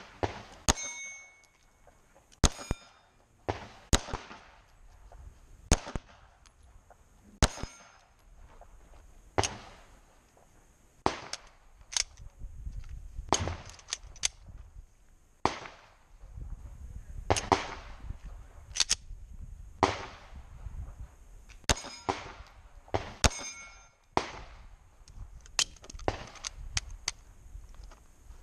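Pistol shots fired at steel plates: a long string of single reports, more than twenty, mostly a second or two apart with some quicker pairs, several followed by the short metallic ring of a struck steel plate.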